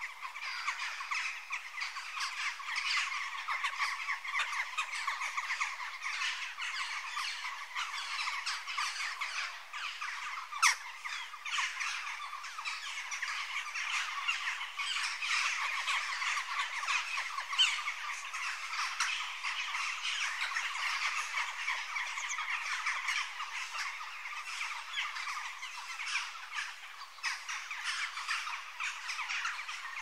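Jackdaws calling: a dense, continuous chatter of many short, sharp calls overlapping one another, with one louder call about a third of the way through and another a little past the middle.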